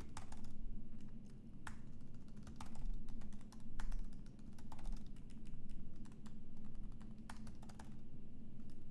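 Typing on a computer keyboard: irregular key clicks while code is being edited, over a low steady hum.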